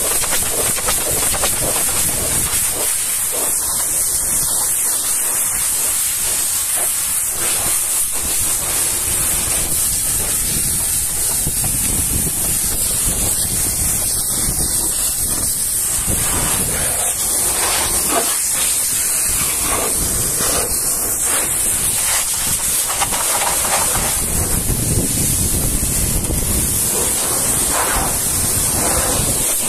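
High-pressure water jet from a pressure washer lance hissing steadily against a truck's side panels and steps, its tone shifting a little as the jet moves over the surfaces.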